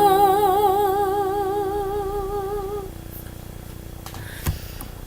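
A woman's voice holds the song's final long note with an even vibrato, fading out about three seconds in, while a lower steady tone lingers after it. A soft knock near the end.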